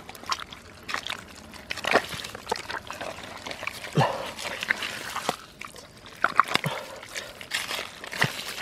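Bare hands squelching through wet mud and scooping muddy water in a hole, giving irregular wet sucking squelches and sloshes, some dropping in pitch.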